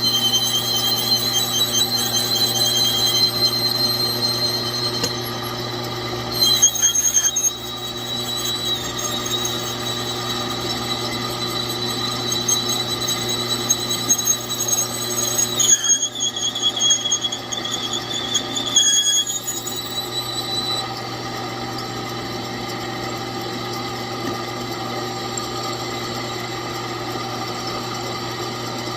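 A drill running steadily while a Matco Hyperstep drill bit squeals in high tones against a hardened steel excavator bucket pin, the sound of the bit rubbing rather than cutting. The squeal breaks off briefly twice and stops a little past two thirds of the way through, leaving the drill motor hum alone.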